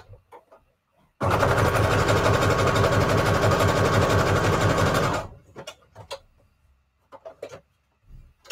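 Electric sewing machine stitching through paper, running steadily for about four seconds and then stopping. A few light clicks follow as the work is adjusted.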